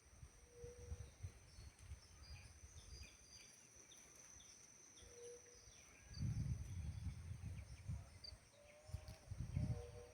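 Rural outdoor ambience: a steady high insect buzz with many short bird chirps over it. A low rumble comes in and grows louder from about six seconds in.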